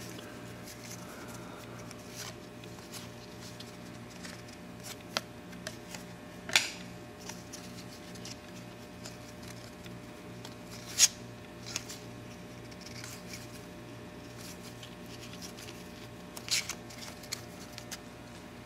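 1993 Donruss baseball cards being handled and flicked through one by one, with a few short sharp snaps of card stock, the loudest about eleven seconds in. A faint low hum lies underneath.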